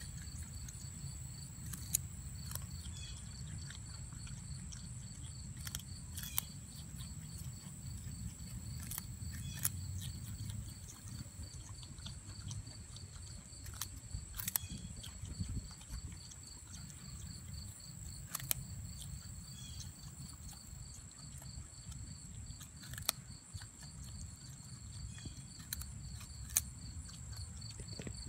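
Groundhog gnawing a raw carrot: sharp crunching bites every few seconds. Behind it, a steady high-pitched insect chorus with a second, pulsing trill.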